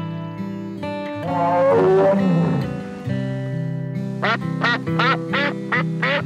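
Background music with a falling sliding tone about a second and a half in, the loudest moment. From about four seconds in, a duck quacks quickly about six times over the music.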